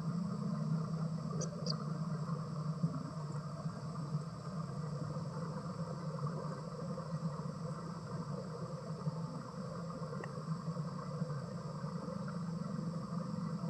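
Steady outdoor background: a constant low hum like a distant engine under a continuous high insect-like drone, with two brief high chirps about a second and a half in.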